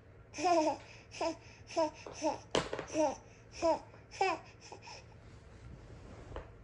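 Baby laughing in a string of about eight short, high-pitched bursts, each falling in pitch, which die away a little past the middle.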